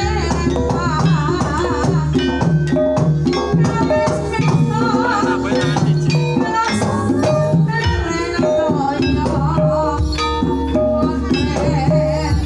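Banyumasan gamelan ensemble playing an uyon-uyon gending: bronze kettle gongs, wooden gambang xylophone and kendang drum sound in a steady repeating pattern, with a sinden singing a wavering, ornamented vocal line. A large hanging gong hums low underneath, dies away about eight seconds in and is struck again shortly after.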